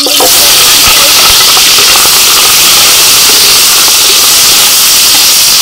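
Hot oil in a metal pot sizzling as shallots, lemongrass, lime leaves and ginger are dropped in to fry. The loud, steady hiss starts suddenly as they hit the oil.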